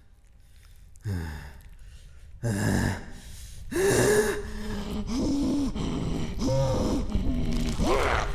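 Monster vocal effects: two deep, distorted vocal sounds that fall in pitch, then louder, strained gasping snarls that come in quick pairs, over a low rumble that swells.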